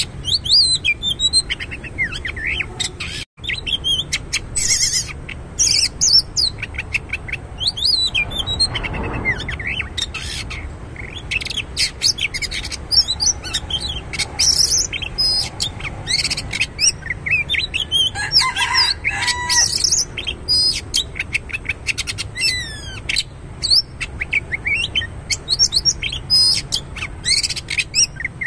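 Oriental magpie-robin singing a long, varied song of quick whistles, slurred notes and chirps, phrase after phrase without pause.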